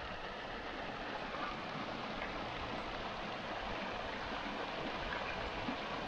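Shallow creek running fast over rocks in a small riffle: a steady rushing of water.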